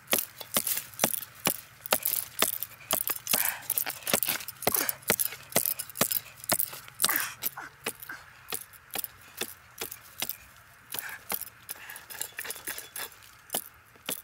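Small long-handled shovel blade striking and chopping into hard, dry soil, repeated sharp blows about two to three a second. The blows grow fainter about halfway through.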